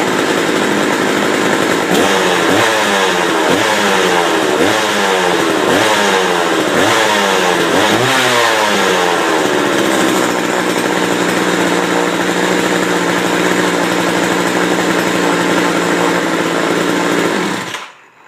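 McCulloch 3214 two-stroke chainsaw running after a cold start, without bar and chain: revved in quick blips about once a second, then settling to a steady idle, before cutting off suddenly near the end. It runs a little rich on its current carburettor setting, spitting some fuel from the muffler.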